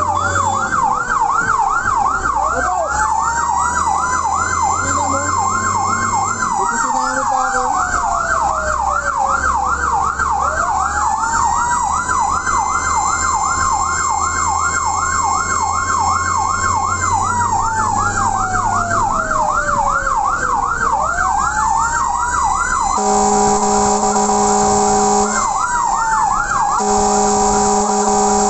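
Emergency sirens of a fire minitanker on a call: a fast yelp runs under a slow wail that rises, holds and falls twice. Near the end two long, steady horn blasts sound, with the yelp briefly between them.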